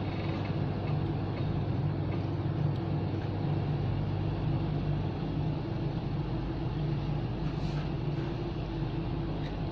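Steady low machine hum with a few steady pitched tones in it, unchanging throughout, with a couple of faint clicks near the end.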